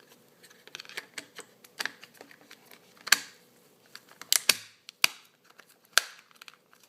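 Scattered clicks and knocks of small plastic headphone parts being handled, fitted back together and screwed shut, the loudest knock about three seconds in.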